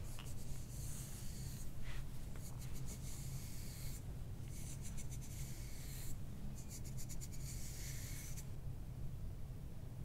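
Fingers rubbing and scratching through oiled hair against the scalp: a close, crackly rustle of quick strokes in several stretches of a second or two, stopping about eight and a half seconds in.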